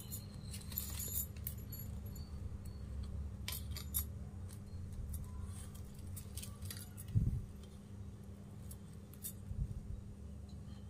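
Flat plastic weaving wire clicking and rubbing as hands pull strands through and tighten knots, scattered light ticks over a steady low hum. A dull thump about seven seconds in.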